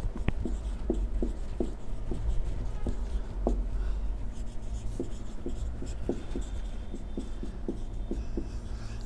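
Marker pen writing on a whiteboard: a string of short, irregular taps and scratches from the pen strokes, several a second.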